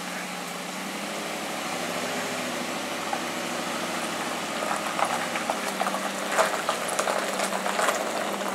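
Pickup truck engine running steadily under load as it tows a pontoon boat on its trailer up the boat ramp. From about halfway through, a scatter of clicks and crunches joins in as the wheels roll onto the gravel.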